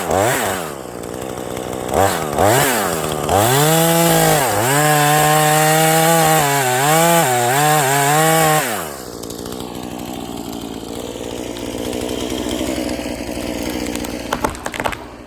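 Gas chainsaw running at high revs, its pitch dipping and recovering again and again as the chain bogs into the wood while cutting firewood. About nine seconds in it falls much quieter, with a few sharp clicks near the end.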